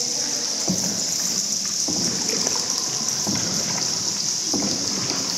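Water splashing around a small boat on an underground river, several soft splashes a second or so apart, over a steady high hiss.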